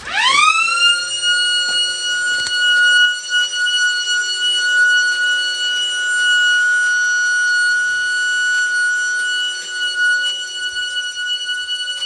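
Vintage car alarm siren going off on a triggered, armed alarm: it sweeps quickly up in pitch, then holds one constant, loud, high tone without wavering, wired to stay on steadily rather than go in and out.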